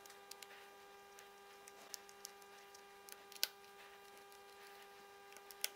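Faint small clicks and taps of screws and a small hand tool on a 3D-printed plastic project box as its lid is screwed down, scattered through the few seconds, the sharpest about three and a half seconds in, over a steady electrical hum.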